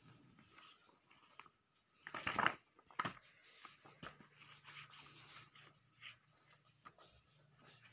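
Glossy comic magazines being handled and their pages turned: a loud paper rustle about two seconds in, a sharp tap about a second later, then soft rubbing of paper. A faint low hum comes in about halfway through.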